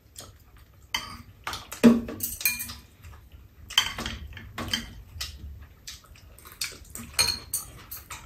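Metal spoons and chopsticks clinking and scraping against bowls and a large round metal serving tray during a meal, in a scattered series of brief clinks.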